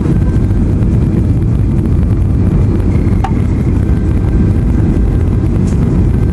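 Steady, loud low rumble of a jet airliner's cabin noise heard from a window seat: engine and airflow noise during the descent to land, with flaps extended.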